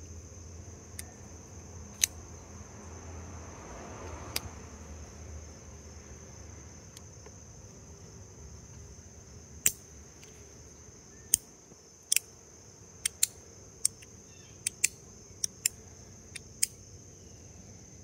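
Sharp snapping clicks of a Kizer Feist front-flipper folding knife and fidget gear being flicked open and shut: a few spaced clicks, then a quick run of about a dozen in the second half. Under them runs a steady, high insect chirring.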